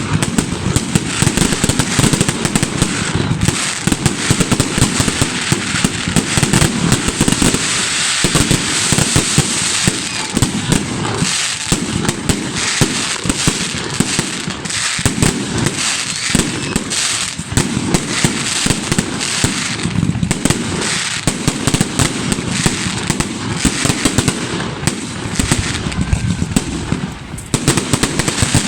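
Fireworks salute: a dense, continuous run of bangs and crackles.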